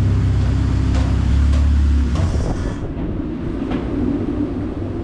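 Freshly rebuilt Honda K-series engine in a Civic EK Type R hatchback idling on a chassis dyno, a steady low rumble. About two seconds in, it drops to a quieter, rougher rumble.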